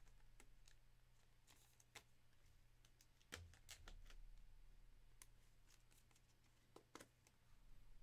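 Near silence with a few faint, scattered clicks from trading cards being handled and slid into a rigid plastic top loader.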